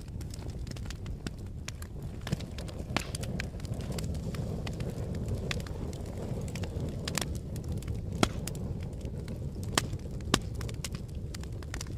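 Fire burning with a steady low rumble and irregular crackles and sharp pops, a few louder snaps near the end.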